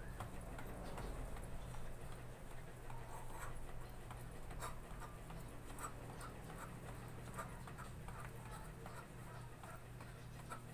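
Soft, irregular taps of feet landing on a hard floor as a person jogs in place, over a steady low hum.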